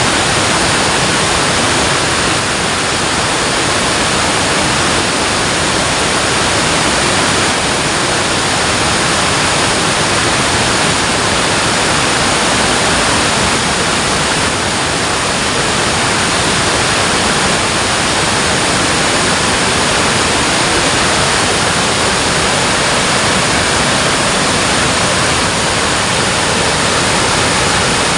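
Water pouring over a dam, a loud, steady rushing roar without a break.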